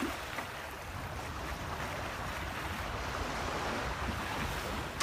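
Steady rush of water along the hull of a sailing yacht under way, with wind buffeting the microphone.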